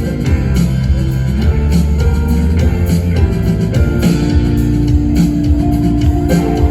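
Rock band playing live: guitars over a drum kit, loud and steady.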